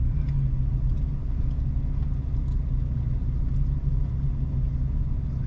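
Steady low engine rumble of a vehicle in motion, even throughout with no changes.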